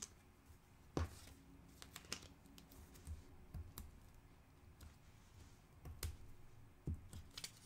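Faint, scattered light taps and clicks of cardstock and paper being handled and set down on a craft mat, about a dozen spread irregularly.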